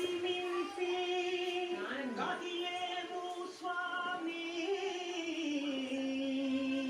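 Slow devotional singing: one voice holds long notes that step and glide, settling onto a lower note near the end.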